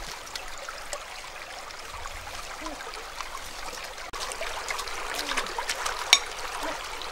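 Shallow stream trickling and flowing over stones, with a few sharp clicks and knocks in the second half as a blade works among the stones in the water.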